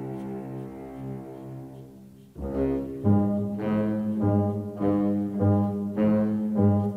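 Background music: a held low note fades away, then about two and a half seconds in a steady pulse of repeated low notes starts, about two a second.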